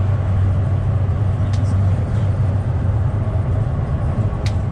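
Tram running, heard from inside the car: a steady low rumble, with short sharp high sounds about a second and a half in and again near the end.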